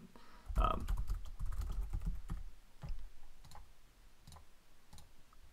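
Computer keyboard typing: a quick run of key clicks for about three seconds, thinning to a few scattered clicks near the end.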